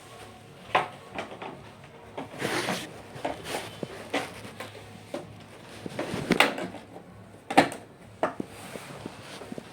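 Things being handled and set down: a string of irregular knocks and clicks with short scraping rustles between them, the sharpest about six and a half and seven and a half seconds in.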